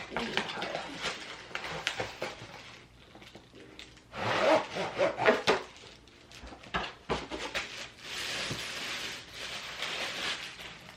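Packaging being handled and opened: irregular rustling, crinkling and light knocks, busiest about four to five seconds in, with a longer rustle near the end.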